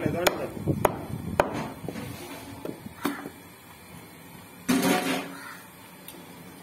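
A heavy cleaver chopping goat meat on a wooden chopping block: a few separate sharp strikes in the first three seconds, then a short, louder burst of sound about five seconds in.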